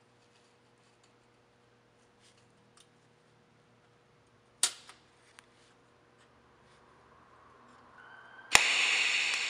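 Stainless butter-knife handles clinking on a steel work table as they are laid in place: a few light ticks and one sharp clank a little before the middle. Near the end a TIG welding arc strikes with a sudden crack and goes into a loud, steady buzzing hiss.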